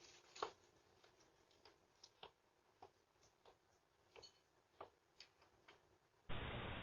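Faint, irregular clicks and taps over near silence. Near the end they give way to a steady hiss.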